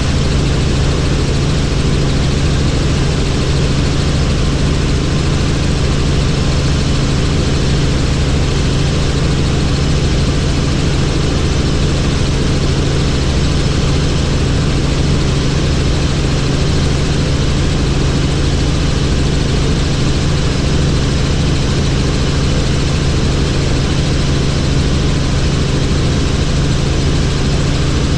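Helicopter in flight, its engine and rotor running steadily: a constant low hum with several steady tones over an even rushing noise.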